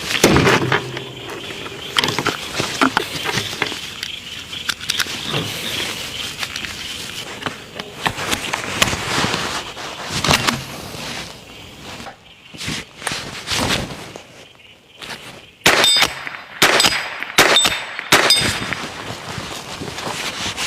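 CZ 515 .22 LR rifle firing: a few spaced shots, then a quick string of four near the end, each followed by a short metallic ring.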